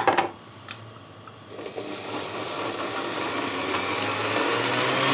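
Electric blender puréeing sorrel soup: a couple of short knocks, then the motor starts about one and a half seconds in and runs, getting steadily louder and rising slightly in pitch.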